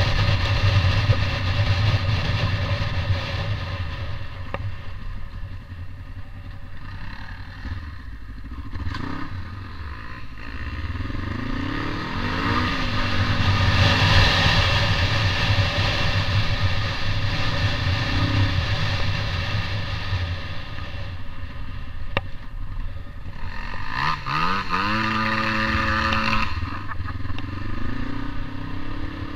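Trail motorcycle engine running under way, the revs rising and falling with the throttle and gear changes: one rising rev about halfway through and a stronger run of rising revs near the end.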